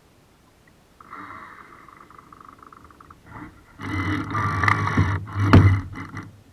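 Water rushing and splashing against the hull of a radio-controlled model sailboat, heard from a camera on its deck. It gets louder about four seconds in, with two sharp knocks near the end.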